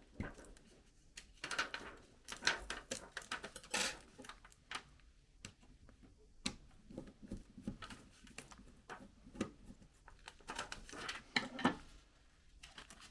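Plastic laptop case of an Acer E5-575G being worked apart by hand: irregular clicks, taps and short scrapes of plastic, with busier stretches near the start and again near the end.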